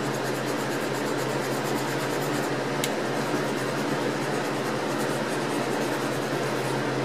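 Dip pen nib scratching across paper in continuous looping strokes, over a steady hum and hiss.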